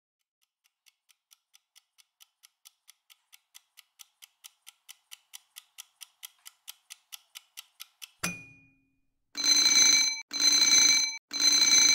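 Countdown timer sound effect: clock ticking at about four or five ticks a second, growing steadily louder, then a sharp click as the timer runs out, followed by three long, ringing alarm beeps.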